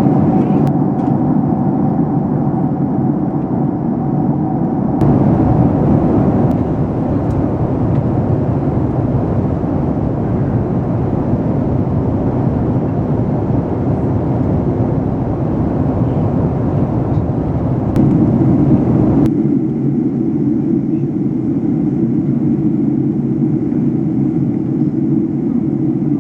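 Steady cabin noise inside a Boeing 767-300ER on approach: engine and airflow rumble. The sound shifts in character about five seconds in and again near twenty seconds.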